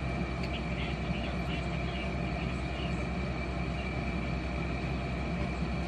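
Steady background hum with a faint high whine running underneath, with no distinct event.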